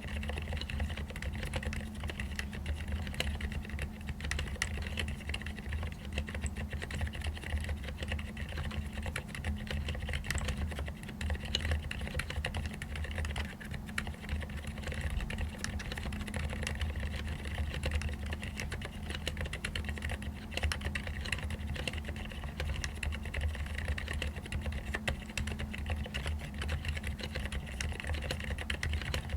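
Continuous typing on a mechanical keyboard with fully lubed Cherry MX Silent Red switches: dense, muted keystrokes, mostly the sound of fingertips striking the keycaps rather than the switches themselves.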